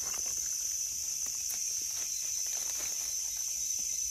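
Steady, high-pitched buzzing chorus of insects, with faint scattered rustles and ticks in dry leaf litter.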